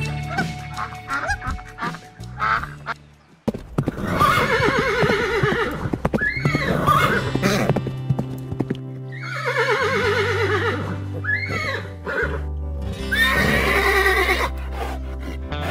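Horses whinnying: three long neighs, each starting high and falling in pitch with a quavering tremble, over background music with a steady low bass. In the first few seconds, before the neighs, a duck quacks a few times.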